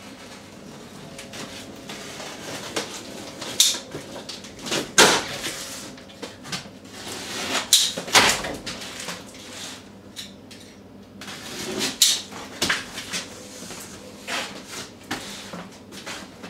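Packing tape being slit and torn off a large cardboard box, with the cardboard scraping and rustling as the flaps are worked open: a series of sharp rips, several of them loud.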